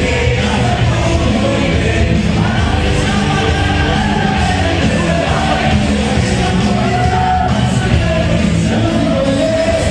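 Loud cumbia music with a singing voice.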